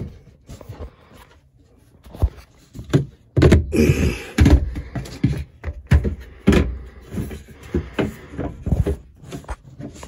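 Irregular knocks, thuds and rubbing from handling in a cramped boat-hull compartment, as hands, a flashlight and the camera bump and scrape against fibreglass and a ribbed hose. Scattered and light at first, much louder and more frequent from about three seconds in.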